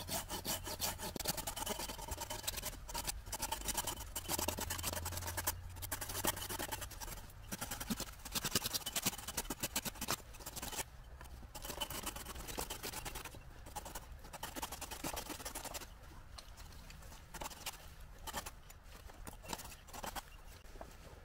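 Silky Pocketboy folding hand saw cutting through a standing dead tree trunk: quick back-and-forth rasping strokes with a few short breaks, a little quieter in the last few seconds.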